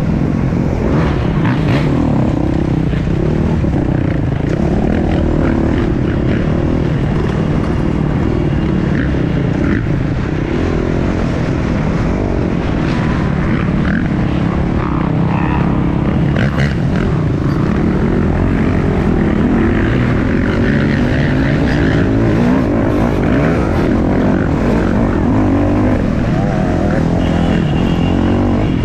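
250cc dirt bike engine running hard, its pitch rising and falling as the rider works the throttle through the course.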